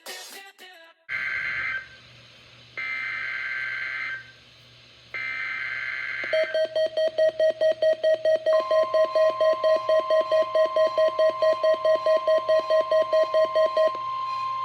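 NOAA Weather Radio weekly test signal: three short screechy bursts of SAME digital header data, then a tone pulsing about four times a second. About halfway through, a steady high alert tone joins it; near the end the pulsing stops and the steady tone carries on.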